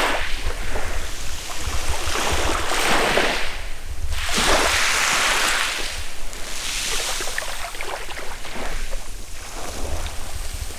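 Small waves washing up and draining back over a coral-rubble beach, the hiss of each wash swelling and fading every two to three seconds, with wind rumbling on the microphone.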